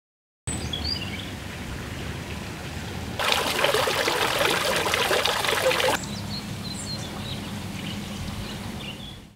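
Outdoor ambience with small bird chirps; about three seconds in, the splashing water of a tiered garden fountain comes in loudly, runs for about three seconds and cuts off abruptly, leaving the quieter ambience and birds.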